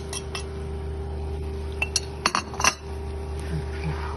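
Spoon clinking against a cooking pot as kishk is added, with a few light clicks at first and a cluster of sharp knocks about two seconds in, over a steady low hum.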